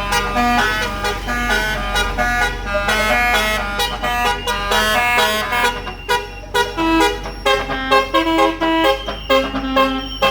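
Bus's basuri telolet musical air horn playing a fast melody of short notes that step up and down in pitch, several a second, over a steady low hum.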